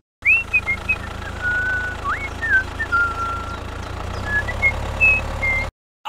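A steady low motor hum with a run of short, high whistled chirps and glides over it. Both cut off suddenly near the end.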